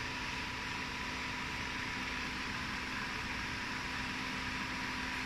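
Wire take-up and coiling machines running: a steady mechanical hum and hiss with a thin, constant whine.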